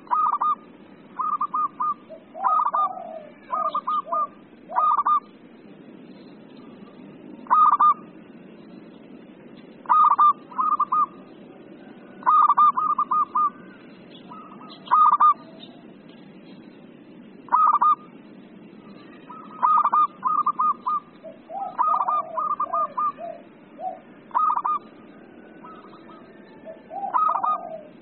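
Zebra dove (perkutut) singing: short phrases of quick, clipped coos, repeated at irregular intervals, over a steady low hiss.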